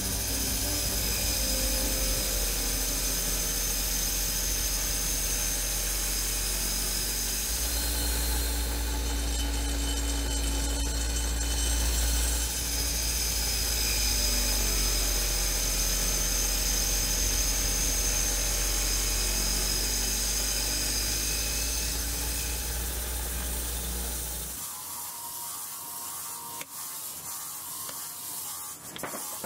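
A factory machine running with a steady high whine over a deep hum. About 25 s in, the hum stops and the sound drops to something quieter with faint ticks.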